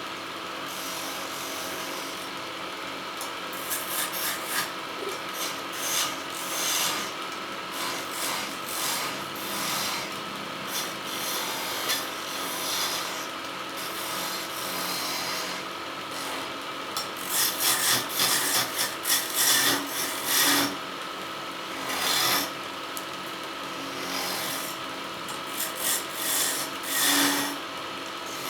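Wood lathe running with a steady motor hum, while something scrapes against the spinning wood in repeated strokes. The strokes come thickest a little past the middle.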